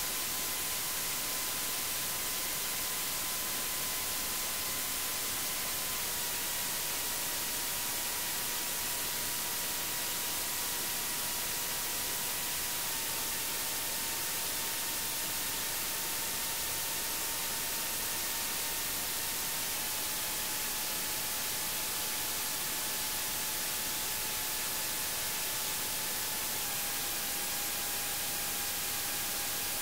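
Steady electronic hiss like white noise, with a faint held tone that steps down slightly in pitch every seven seconds or so.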